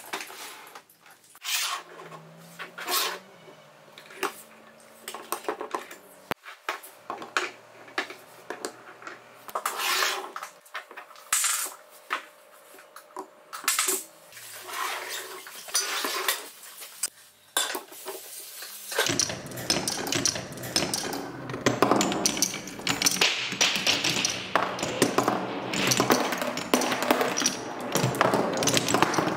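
Wooden pieces of a Hape Quadrilla marble run clacking now and then as they are handled and fitted together. About two-thirds of the way in, marbles start rolling down the wooden tracks and spirals, a dense, continuous clatter of rolling and clicking that is louder than the handling.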